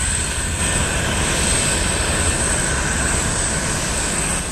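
Jet airliner engines running steadily in the distance, under a constant hiss of heavy rain.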